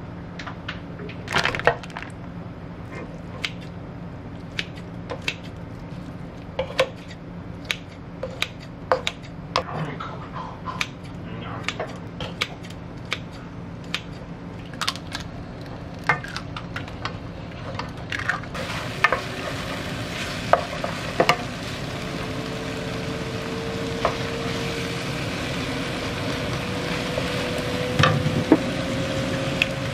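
Wooden spatula and kitchen scissors clicking and scraping against a nonstick wok as tofu and chicken breast fry with a light sizzle. About two-thirds of the way in, the sizzle becomes a denser, steady frying hiss as shredded cabbage and carrot are stir-fried, with a faint hum slowly rising in pitch near the end.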